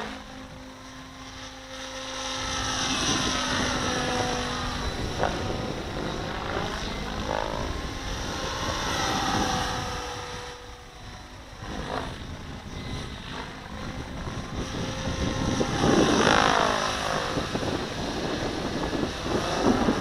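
Radio-controlled model helicopter flying aerobatics, its rotor blades and motor whining. The sound swells and fades several times as it swoops close and pulls away.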